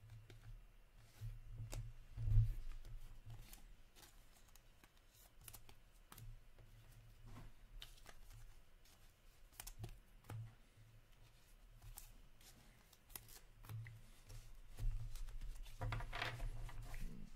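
Trading cards handled by hand: cards slid, flipped and set down on a stack with soft clicks and rustles, a louder knock about two seconds in, and a longer burst of card rustling near the end.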